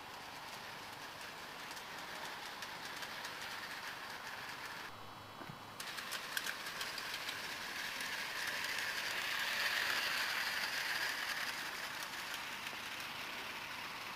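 Garden-scale model ore train running on outdoor track: a steady rolling hiss of wheels on rail with many small clicks. It grows loudest about ten seconds in as the red hopper cars pass close by.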